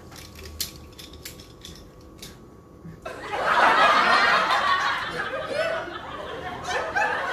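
A few light clicks, then from about three seconds in, loud chuckling laughter.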